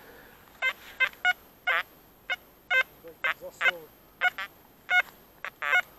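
Metal detector sounding a rapid string of short target beeps, about a dozen in six seconds at uneven spacing, some at a steady pitch and some warbling, as the coil is swept over metal in the soil.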